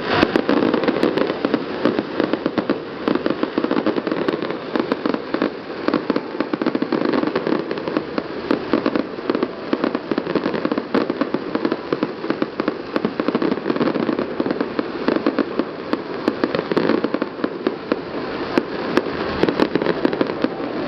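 Aerial fireworks display going off in a rapid, dense barrage of bangs and crackles, with many bursts every second and no pause.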